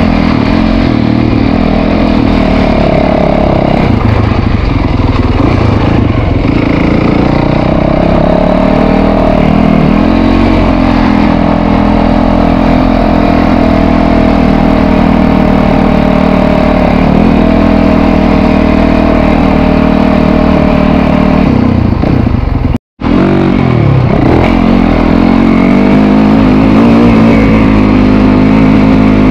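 Dirt bike engine running hard under the rider on a dirt trail, its revs rising and falling as he rides and shifts. The sound drops out for a split second about 23 seconds in.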